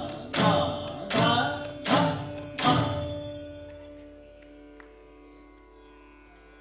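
Indian classical percussion ensemble playing four loud drum strokes together, about one every 0.7 seconds, over a steady drone note. About three seconds in, the drums stop and the drone rings on, slowly fading.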